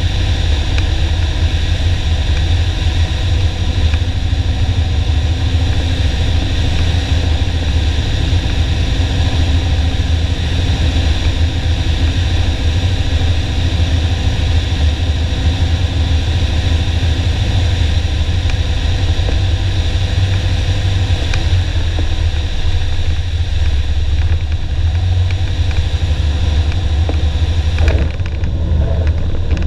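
Piper Warrior's four-cylinder Lycoming engine and propeller droning steadily inside the cabin on final approach. Near the end the sound briefly jumps in loudness and then drops a little.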